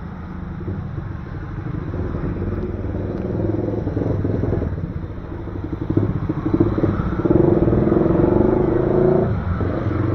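Motorcycle engines of passing street traffic. A motorcycle tricycle with a sidecar passes close, its engine loudest in the second half and dropping away suddenly near the end.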